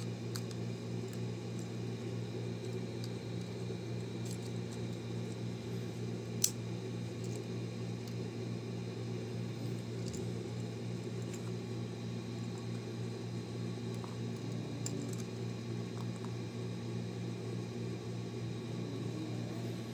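Small plastic clicks as a Honda Civic smart key fob is put back together, the emergency key blade slid in and the shell halves pressed shut, one sharp snap about six seconds in. A steady low hum runs underneath throughout.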